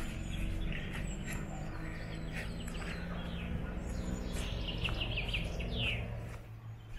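Small birds chirping, with a quick run of falling notes about five seconds in, over a steady low hum.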